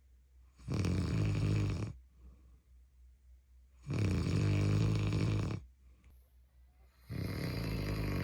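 A man snoring in his sleep: three long snores, each lasting a second or more, about three seconds apart.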